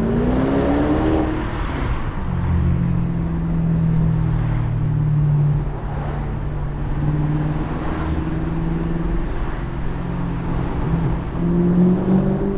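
BMW 650i convertible's 4.8-litre V8 accelerating, its note rising for about a second and a half, then running at a steady pitch while cruising. It picks up again briefly near the end.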